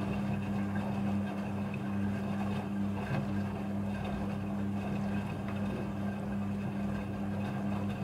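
Midea front-loading washing machine running, its motor and drum giving a steady low hum with a whirring rush over it.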